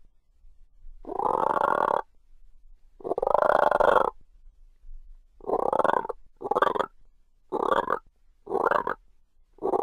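Frog croaking: two long rasping croaks of about a second each, then a faster run of four shorter croaks, with another croak starting near the end.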